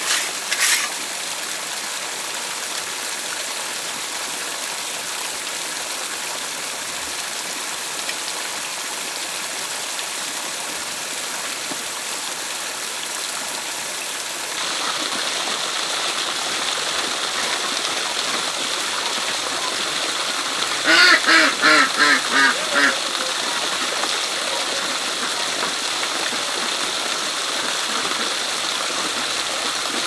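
Steady rush of flowing water. About halfway a steady high hiss joins in, and a little later an animal gives about seven short pitched calls in quick succession over two seconds.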